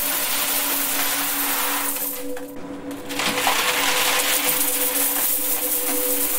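Stream of coins pouring into a metal box, a continuous metallic clinking rush that drops away briefly about two and a half seconds in, then resumes. Two steady low tones hum underneath throughout.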